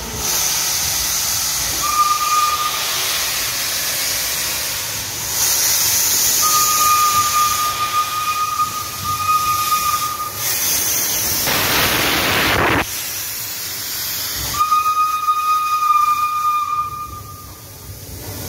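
Steam locomotive moving slowly, with steam hissing loudly from its cylinder drain cocks and a stronger blast of steam about eleven seconds in. A high, steady squeal sounds three times: briefly about two seconds in, for about four seconds in the middle, and for a couple of seconds near the end.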